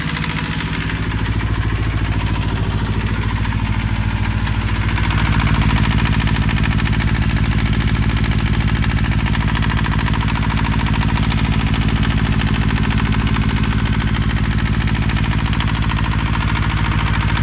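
Boat's inboard engine running steadily at fast idle, heard through the open engine compartment. It grows louder about a second in and again around five seconds in.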